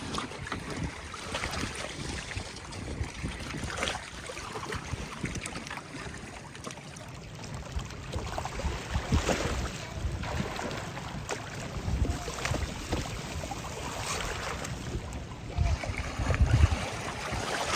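Wind buffeting the microphone on a boat out on a lake, over water noise. It comes with scattered knocks and thumps, and gets louder in gusts about twelve seconds in and again near the end.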